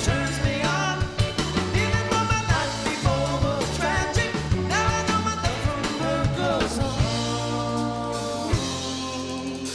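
Live rock band playing: a sung lead vocal over electric guitar, keyboard, bass and drum kit. About seven seconds in the drumming thins out and the band holds a chord.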